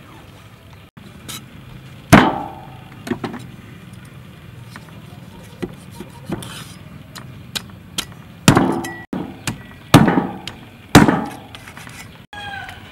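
A heavy cleaver chops through a raw stingray on a wooden chopping block: hard strikes with a short metallic ring. One big chop comes about two seconds in, and three more follow close together in the last third, with lighter taps between.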